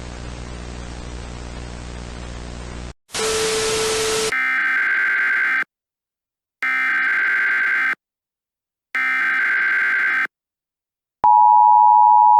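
Emergency Alert System broadcast opening. Hiss and low hum give way to a short burst of loud static with a tone in it, followed by the three data bursts of the EAS digital header, each about a second long with a second's gap. Near the end the loud, steady two-tone EAS attention signal starts.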